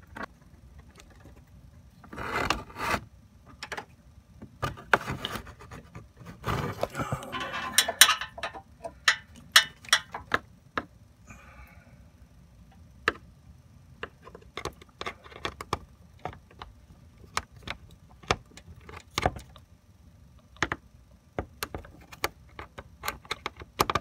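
A screwdriver clicking, tapping and scraping against a car's metal grille-mounting bracket and plastic trim while a grille screw is worked in at an awkward angle. It makes irregular sharp ticks throughout, with a few longer scraping, rattling stretches in the first eight seconds.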